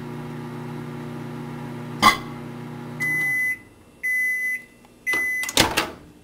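Microwave oven humming as it runs, with a click about two seconds in; the hum dies away and three end-of-cycle beeps sound about a second apart. A loud clunk follows near the end as the door latch is released.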